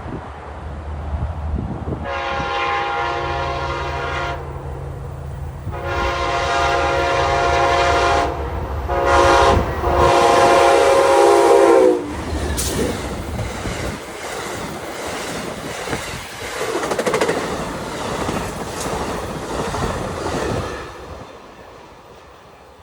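Amtrak passenger train passing at 79 mph: the diesel locomotive's air horn sounds the grade-crossing signal of two long blasts, a short one and a long one, over the engine's rumble, the last blast dropping in pitch as the locomotive passes. The cars then rush by with wheels clattering on the rails and wind noise, fading away near the end.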